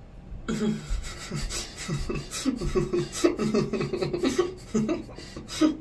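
Laughter in short, breathy bursts, starting about half a second in.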